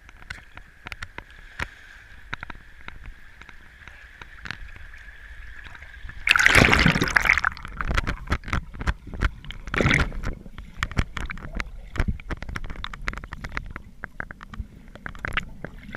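Fast-flowing river water heard underwater through a camera's waterproof housing: a faint steady tone at first, then a loud rush of water about six seconds in, followed by many irregular clicks and knocks.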